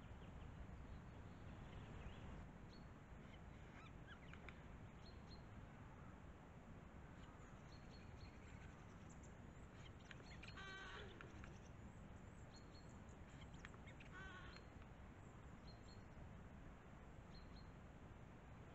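Faint wild bird calls over the low hiss and rumble of a trail camera's built-in microphone: scattered short high chirps, and two louder pulsing calls about ten and fourteen seconds in.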